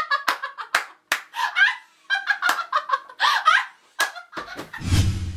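Sharp claps or slaps among short bursts of a woman's high-pitched shrieking and laughing voice, with a low swell of sound starting near the end.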